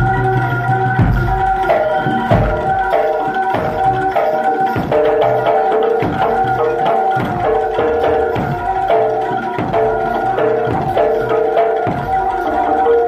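Jaranan gamelan music: hand-drum strokes under short, repeating pitched metallophone notes in a steady looping pattern.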